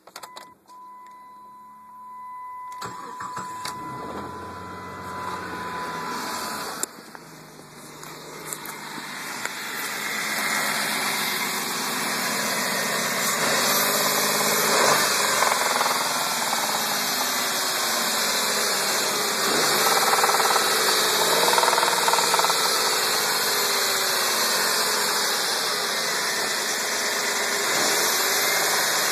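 1999 Dodge Intrepid's 2.7-litre V6 cranking and starting cold about three seconds in, after a steady tone at the start, then running and idling with the knock its owner calls the 'infamous engine knock', which he says comes when the intake kicks in and it's breathing in air.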